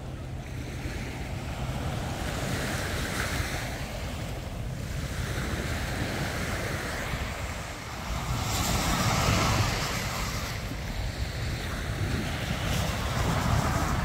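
Small sea waves breaking and washing up a sandy beach, with wind buffeting the microphone. The surf swells louder about eight seconds in and again near the end.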